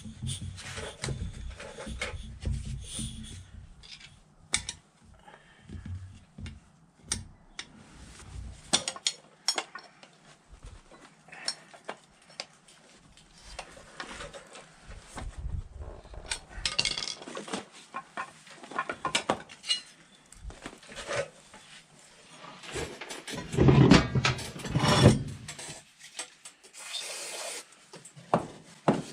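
Hand work on motor-scooter wheel parts: rubbing and scraping, with scattered clinks and knocks of metal parts and tools, and a louder stretch of rubbing near the end.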